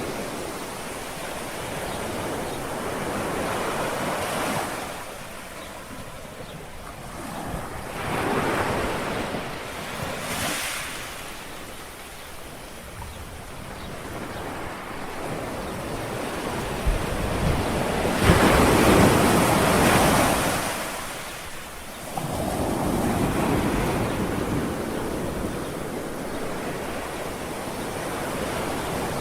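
Small sea waves washing onto the shore, each one swelling and falling away every few seconds, the largest about two-thirds of the way in. A light breeze blows over the microphone.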